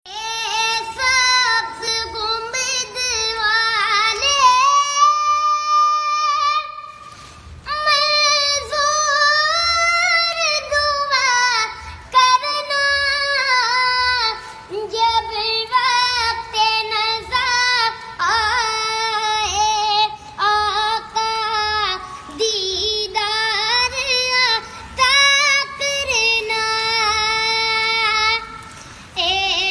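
A young boy singing solo in a high voice, with ornamented lines that bend and glide in pitch, holding one long note about five seconds in.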